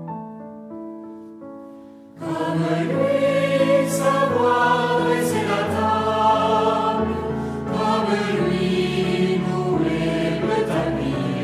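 Background music: a few keyboard notes fading out, then about two seconds in a choir comes in singing a religious song over instrumental accompaniment.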